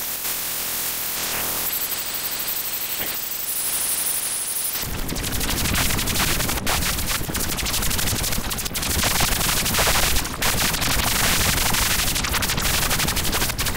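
Harsh synthetic static made by converting photographs into sound with image-to-sound software. It starts as a thinner hiss with faint steady low tones, then about five seconds in switches to a louder, dense noise full of rapid crackling clicks.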